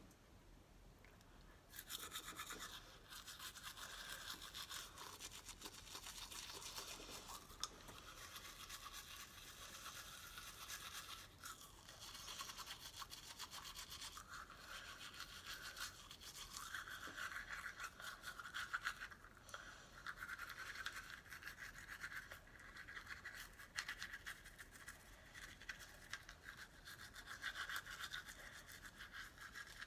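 Manual toothbrush scrubbing teeth with toothpaste, a fast back-and-forth bristle scrub that starts about two seconds in.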